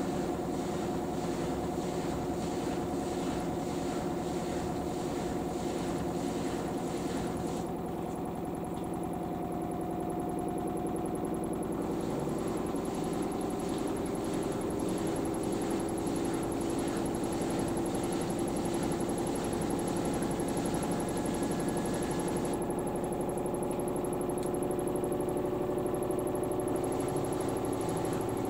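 LG AiDD Steam direct-drive washing machine in its final spin, the drum spinning at speed: a steady motor whine over a drum rumble, its pitch creeping slightly upward.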